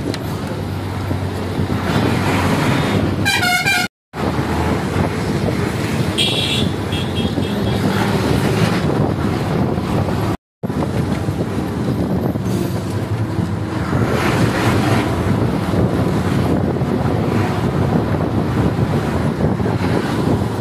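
Steady engine, road and wind noise of a moving bus heard at an open window, with vehicle horns: a pulsing multi-tone horn about three seconds in and a shorter, higher beeping horn about six seconds in. The sound cuts out completely twice, briefly, near four and ten seconds.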